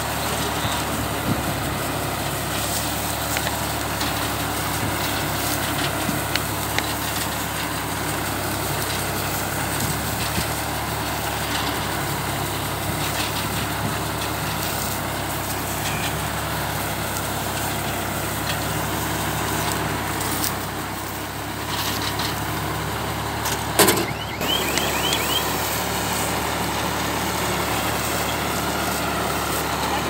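Tractor diesel engine running steadily under load while pulling a Redlands SBR 330 round baler through straw, the baler's pickup and bale chamber clattering with small clicks throughout. A single loud clank stands out late on.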